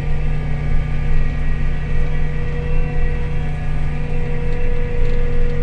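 Vehicle engine running at a steady speed, a constant low drone with no change in revs.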